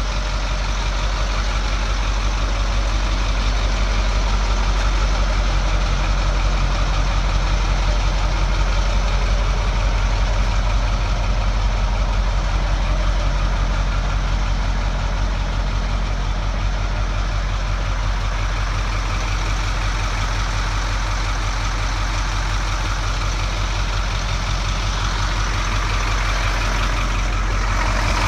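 Engine of a 1983 International 1754 dump truck idling steadily, with an even low pulsing beat.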